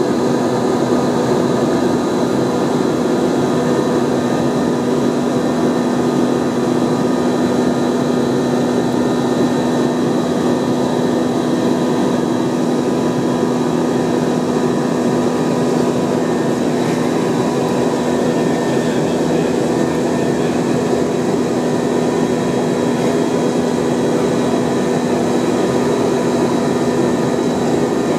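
Steady cabin noise inside an Airbus A321-231 in flight: the even drone of its IAE V2500 jet engines and rushing air, with a few constant hums running through it.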